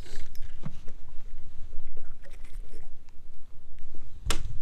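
Rough rustling and small clicks from a freshly caught crappie being handled close to the microphone, over a low rumble, with one sharp click about four seconds in.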